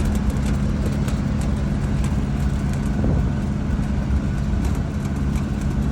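A steady low engine hum with road rumble, as from a running vehicle, with a few faint clicks.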